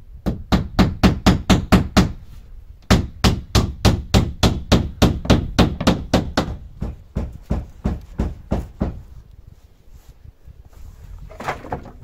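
Hammer driving nails into wooden cover boards: quick runs of strikes, about four or five a second, with a short break about two seconds in. The strikes turn lighter after about seven seconds and stop about nine seconds in.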